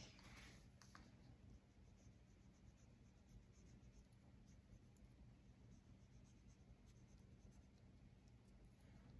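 Near silence with the faint scratch and tick of a fine paintbrush dabbing and stroking alcohol ink on Nara synthetic paper, a little busier in the first second, over a faint steady low hum.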